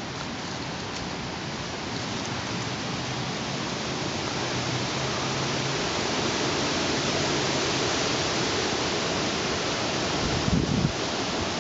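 Wind gusting, a steady rushing noise that swells and eases, with a brief heavier buffet on the microphone about ten and a half seconds in.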